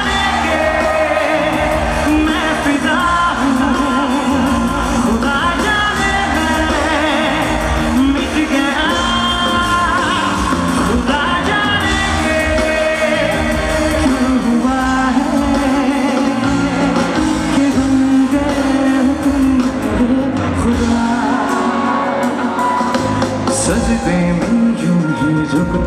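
A male singer singing live into a microphone over loud, steady band music.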